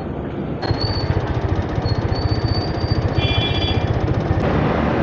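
Rapid, steady mechanical rattle that starts about half a second in, with a thin high whine over it.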